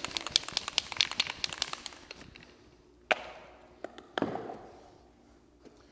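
Paper crinkling and rustling in the hands, fading out after about two seconds. Then come two sharp knocks about a second apart as objects, among them a spray-paint can, are set down on the hard floor; the second knock rings briefly.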